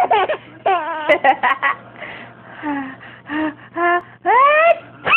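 Baby laughing in short pitched bursts broken by gasping breaths, with a long rising squeal near the end.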